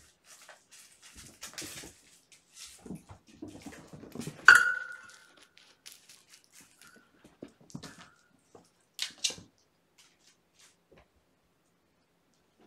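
Kittens playing, with scattered scampering, rustling and small knocks as paws and toys hit the carpet and scratcher. A sharp knock with a short ring after it, about four and a half seconds in, is the loudest sound, and two sharp clicks follow near the middle.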